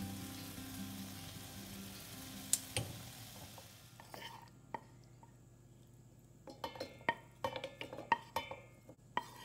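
Faint sizzle of a hot pan fading away under the tail of background music. From about four seconds in, cooked onion, tomato and cashew pieces slide from a tilted nonstick wok and drop into a stainless-steel grinder jar in a scatter of light clicks and taps.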